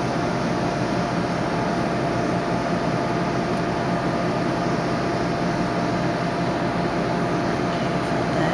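Steady room hum with a constant mid-pitched tone under it, typical of air conditioning or ventilation running.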